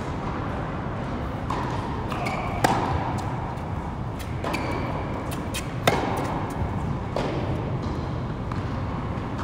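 Tennis rally on an indoor hard court: rackets strike the ball, with the two loudest hits about three seconds apart and fainter impacts between them, echoing in a large tennis hall. A few short squeaks of tennis shoes on the court come with the hits.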